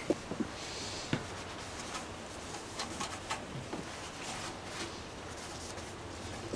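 A few light clicks in the first second or so, then soft, scratchy rubbing as a microfibre cloth wipes over a scooter's grab rail and painted bodywork.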